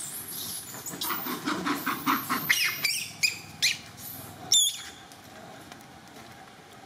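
Long-tailed macaques screeching: a run of high-pitched squeals over about four seconds, ending with one short, sharp squeak.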